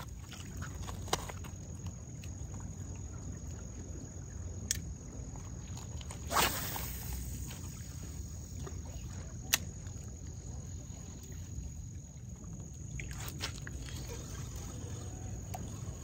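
Insects chirring in one steady high tone over a constant low rumble. A few sharp clicks sound about 1, 5 and 9 seconds in, and a brief swish about six seconds in is the loudest moment.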